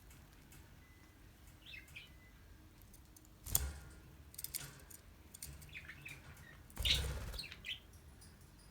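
Budgerigar giving a few short, high chirps, with two louder thumps or rustles, about three and a half and seven seconds in.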